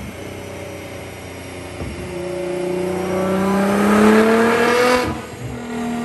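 Tuned Nissan GT-R R35's twin-turbo V6 running on a chassis dyno, revving up in a steady pull: the engine note climbs in pitch and grows louder from about two seconds in, then falls away sharply about five seconds in as the throttle is released.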